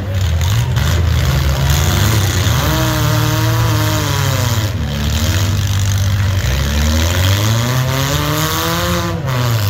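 Demolition-derby compact car engines revving hard, the pitch climbing and dropping back twice.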